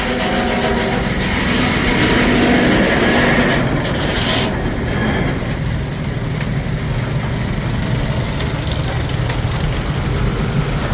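Steam-engine-driven Frick sawmill running, a steady mechanical din. A brief sharp burst of noise comes about four seconds in, after which it settles to a lower, even rumble.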